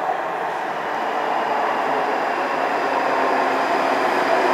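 Class 334 Juniper electric multiple unit approaching the platform, a steady rumble of wheels on rail that grows gradually louder as it nears.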